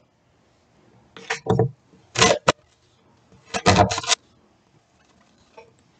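Kitchen knife chopping peeled ginger root on a wooden cutting board: a few separate cuts about a second in and again around two seconds, then a quick cluster of cuts a little later, with short pauses between.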